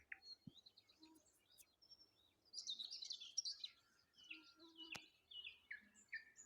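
Dawn chorus of several small songbirds chirping and warbling, with a quiet lull between about one and two and a half seconds in. A single sharp click about five seconds in.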